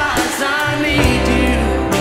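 Contemporary worship song: a voice singing a held, sliding melody line over steady instrumental accompaniment.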